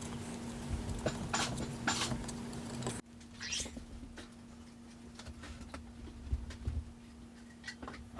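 Small clicks and rustles of hands working plastic ribbon-cable connectors on a plasma TV's circuit boards, over a steady electrical hum; the sound drops abruptly about three seconds in.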